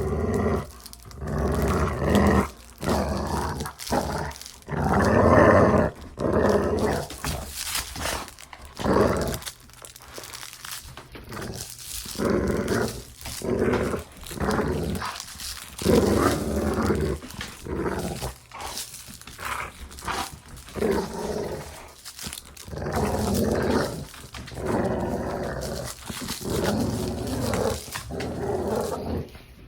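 A dog growling in play, in repeated rough growls of up to about a second and a half each, broken by short pauses and an occasional bark.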